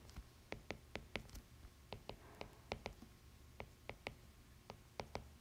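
Stylus tip tapping against an iPad's glass screen while numbers are handwritten: faint, sharp, irregular clicks, about four a second, with a short pause near the middle.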